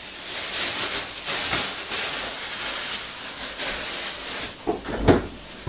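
Thin plastic bag rustling and crinkling as it is handled, then a few knocks and a low thump about five seconds in.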